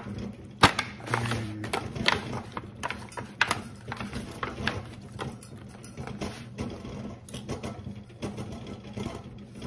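Thin disposable aluminium foil pan crinkling and knocking as it is set down and a raw whole chicken is pressed into it by hand, with irregular clicks throughout and a sharp knock about half a second in.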